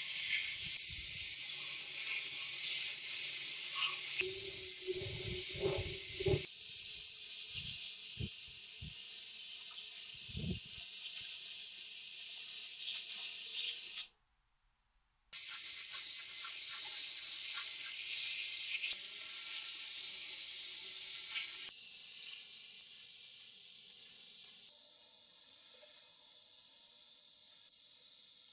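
Compressed-air paint spray gun hissing in long bursts as it sprays paint. The hiss drops out completely for about a second just after halfway, then resumes. A few soft knocks sound under the hiss in the first half.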